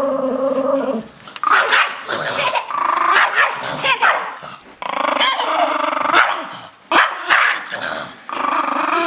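A Chihuahua growling and barking aggressively in about four rough bouts, a snarling reaction to being told it is going in the shower.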